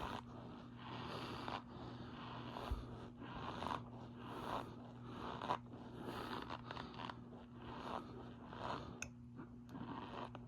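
Cornstarch squeaking and crunching as it is pressed, in a steady run of short scrunches about one or two a second, over a low steady hum.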